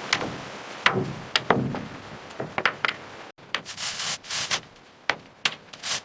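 Hand-tool work on wood: sharp knocks and a couple of dull thuds in the first half, then, after a sudden break, a run of short scraping strokes.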